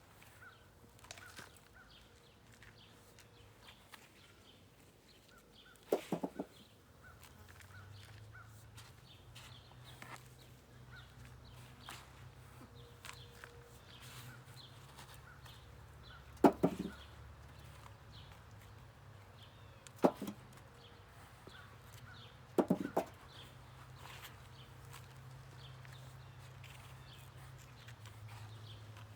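Potatoes harvested by hand from a pot of soil: faint rustling and small clicks, with four sharp knocks spread out as potatoes land in a container. A low steady hum comes in about a quarter of the way through.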